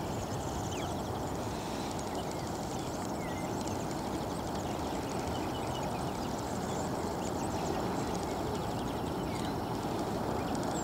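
Distant Boeing 787-9 Dreamliner on approach: a steady low rush of jet engine noise that grows slightly louder near the end, with small birds chirping over it.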